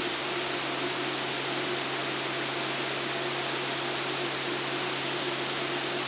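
Steady cockpit noise of an Extra 300L aerobatic plane in flight: an even hiss of engine, propeller and rushing air, with a steady low hum underneath.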